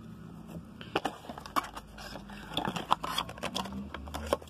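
Handling noise: scattered clicks, taps and plastic rustling as products are moved about in their packaging, busiest about two and a half to three and a half seconds in.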